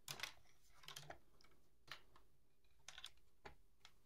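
Faint, irregular light clicks and taps of plastic PTFE filament tubes being handled and pushed into the AMS Lite's push-fit connectors.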